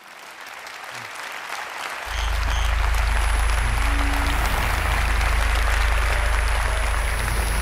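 A large audience applauding, the clapping swelling up at the start. About two seconds in, music with a heavy deep bass comes in under the applause.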